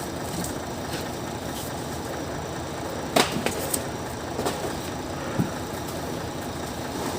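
A new clutch pressure plate being unpacked and handled, giving a few sharp clicks and knocks about three to five seconds in, over a steady background hum.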